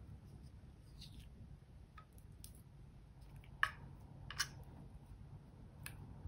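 A plastic spatula scraping and tapping against a small makeup pot and a glass tray as pink makeup is scooped out and dropped into clear slime: a few light clicks, with two louder taps about three and a half and four and a half seconds in, over a low steady hum.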